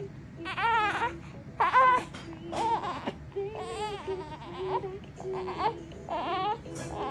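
A 12-day-old newborn crying in a series of short, high, wavering wails, fussing as it strains to lift its head on its tummy.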